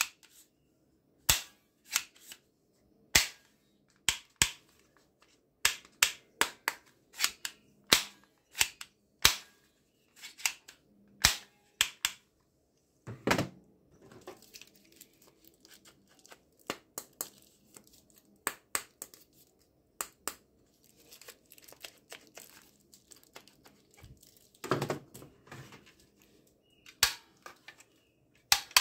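Sharp plastic clicks of toy guns being cocked and triggered by hand, one or two a second and coming faster in the second half. Twice, about halfway and near the end, a heavier plastic clatter as a toy gun is set down on the table.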